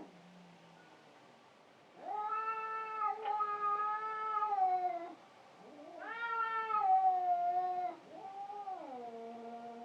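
Cats yowling in a fight: three long, drawn-out wails after about two seconds of quiet, the last one dropping in pitch in steps.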